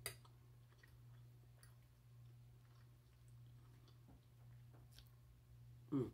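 A fork clicks once against a glass dish, then faint chewing and small mouth clicks over a steady low hum, with a short vocal sound near the end.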